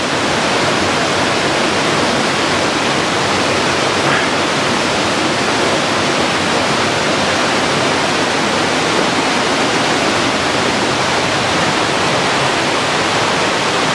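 A waterfall rushing steadily: an even, unbroken hiss of falling and flowing water.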